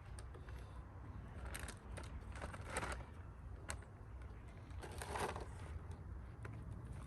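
Scattered clicks, knocks and short scrapes of parts being handled as the rebuilt marine toilet pump is fitted back on the toilet, over a low steady hum.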